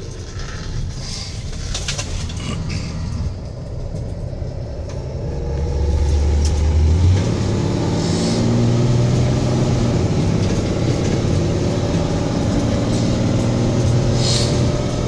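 A PACCAR diesel engine and road noise heard from inside a Peterbilt 337 truck cab while driving. About halfway through the engine gets louder and its note steps up in pitch, then holds steady.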